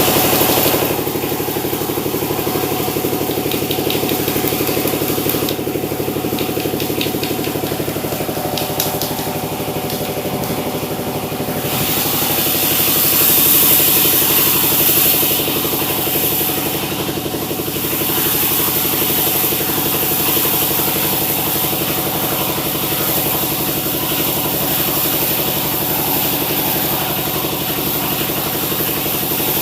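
Sawmill machinery running steadily with a constant engine-like hum. It grows louder and hissier for a few seconds around the middle.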